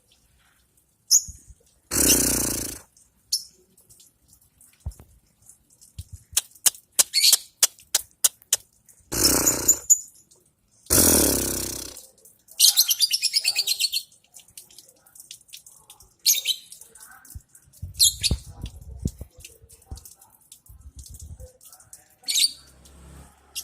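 Lovebird calling: scattered sharp chirps and several loud, harsh squawks, with one rapid chattering trill of about a second and a half near the middle.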